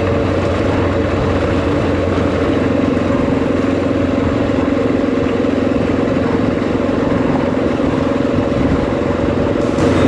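Honda XR650L's single-cylinder four-stroke engine running steadily while the bike is ridden along at an even speed.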